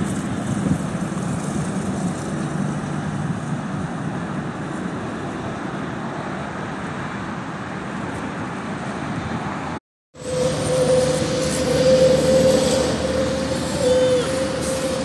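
Steady road traffic noise. After a brief dropout about ten seconds in, it comes back louder with a steady hum added.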